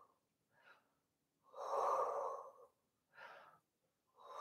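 A woman's breathing close to the microphone while she holds a back-extension stretch: two long audible out-breaths, one about a second and a half in and another near the end, with shorter, fainter in-breaths between them.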